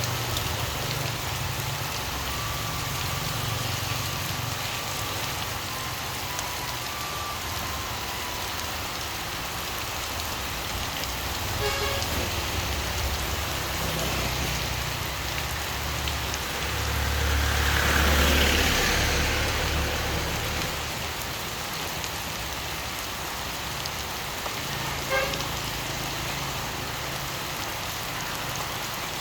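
Steady rain falling, with a motor vehicle passing a little past halfway: a low rumble and hiss that swell and fade over a few seconds.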